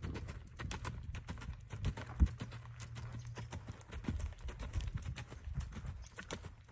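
Hoofbeats of a sorrel mare loping on sand footing: a quick, uneven run of dull thuds, with one louder thump a little over two seconds in.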